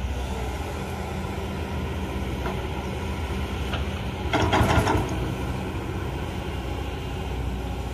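Kobelco SK200 XD excavator's diesel engine running steadily, with a short burst of scraping and knocking about halfway through as the bucket digs into the soil.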